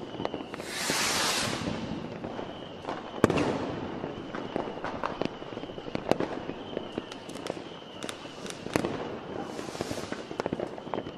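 New Year's Eve fireworks: scattered firecracker and rocket bangs at varying distances, the loudest about three seconds in. A loud rushing hiss lasts over a second near the start, and a fainter one comes near the end.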